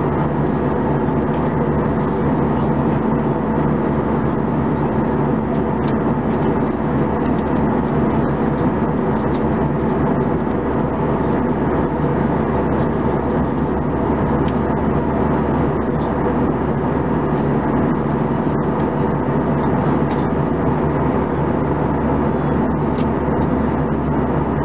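Steady cabin noise of an Airbus A320-214 in cruise, heard from a window seat: the hum of its CFM56 turbofan engines under an even rush of airflow, with a few steady low tones.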